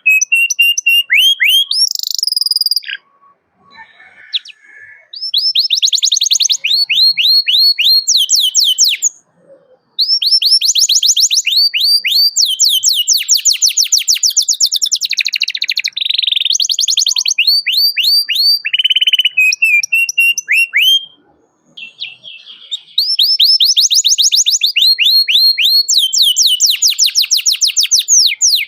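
Domestic canary singing in fast trills of repeated high, downward-sweeping chirps, broken by a few short pauses. This is a male in full song calling out to rivals.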